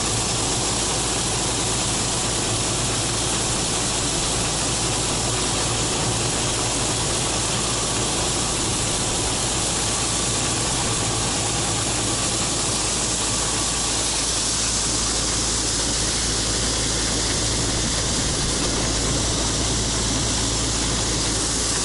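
Case IH 2166 combine harvester running steadily while harvesting corn, with its unloading auger emptying shelled corn into a trailer. Its diesel engine and threshing machinery make a constant drone with a hiss over it.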